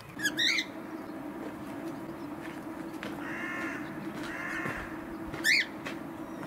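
Birds calling: a quick pair of sharp high calls near the start, two longer harsh calls in the middle, and another sharp call near the end, over a steady low hum.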